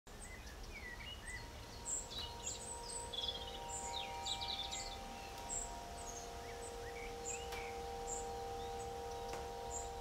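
Small birds chirping and singing in short, repeated calls, some gliding in pitch, over a soft chord of several held tones.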